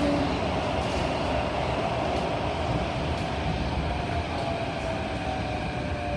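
SMRT CT251 metro train running, heard from inside the carriage as it slows into a station. A steady rumble carries a motor whine that sinks gently in pitch toward the end as the train brakes.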